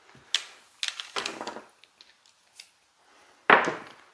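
Clicking and clattering of dice and casino chips at a craps table, a scatter of short clacks with the loudest clatter about three and a half seconds in.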